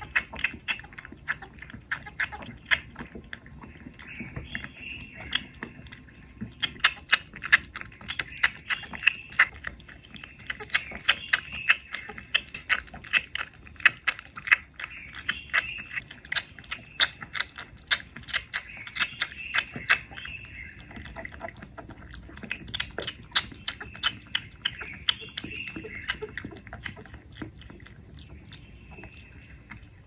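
A cat sucking milk from a small feeding bottle: quick wet suckling clicks at about three or four a second, thinning out near the end. Birds chirp in the background.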